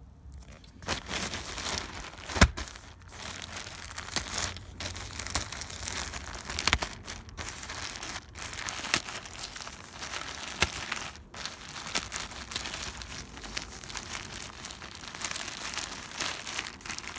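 Plastic packaging crinkling and crackling as it is handled and unwrapped, with a sharp louder snap about two and a half seconds in.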